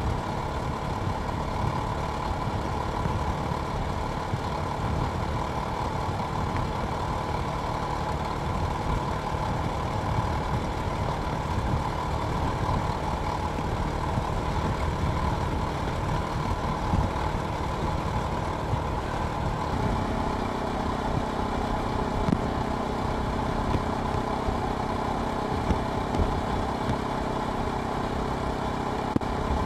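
Jawa Perak motorcycle's single-cylinder engine running steadily. About twenty seconds in, the sound settles into a steadier, even pitch.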